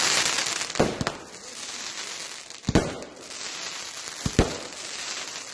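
Fireworks display: aerial shells bursting in a string of sharp bangs, five in all, two of them close together about four seconds in, over a steady crackle and hiss.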